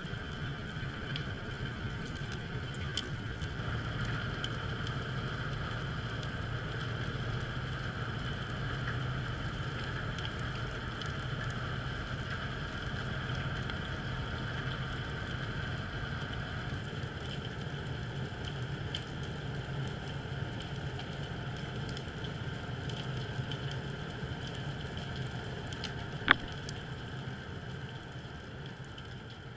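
Ambient sound recorded underwater: a steady hiss over a low hum, sprinkled with faint crackling clicks, and one sharper click about 26 seconds in.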